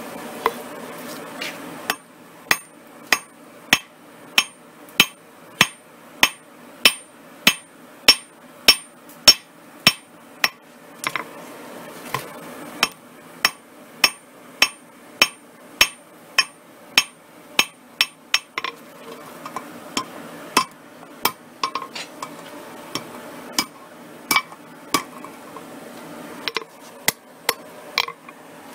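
Hand hammer forging a red-hot 10 mm mild-steel chain link on an anvil: a steady run of sharp ringing blows, about one and a half a second. Past the halfway mark the blows turn lighter, slower and irregular.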